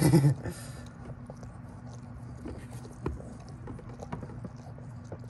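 Nine-day-old Boston terrier puppy suckling at its mother's teat: scattered small clicks and smacks over a steady low hum.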